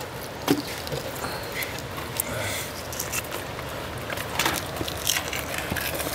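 Small wet handling noises as the skin is pulled off a dab by hand on a cutting board, with a few short sharp clicks about half a second in and again around four and a half and five seconds in.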